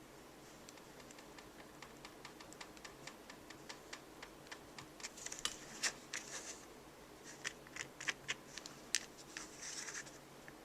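Soldering-iron tip scraping and tapping on a plastic lid while melted plastic is worked into a weld: a run of light clicks that grows busier about halfway, with short scratchy scrapes around the middle and near the end.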